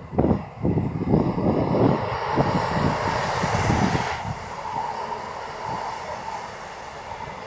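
Two West Midlands Railway Class 170 Turbostar diesel multiple units passing at speed. A high hiss builds and cuts off suddenly about four seconds in as the train clears, with steady running noise and gusts of wind buffeting the microphone.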